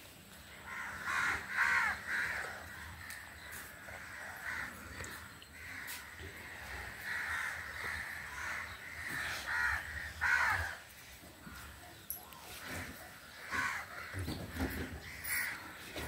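Crows cawing over and over in clusters of harsh calls, loudest about a second or two in and again about ten seconds in.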